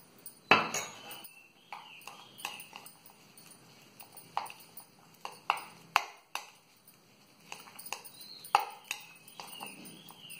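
Metal spoon clinking and scraping against a glass mixing bowl as oats are added and stirred into a thick peanut butter and honey mixture, giving irregular sharp clinks, the loudest about half a second in.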